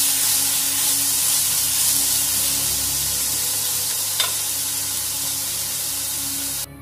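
Chopped ginger, garlic and green chilli sizzling in oil in a nonstick pan as they are stirred with a spatula, shallow-frying to cook off their raw smell. A single tap comes about four seconds in, and the sizzle cuts off suddenly near the end.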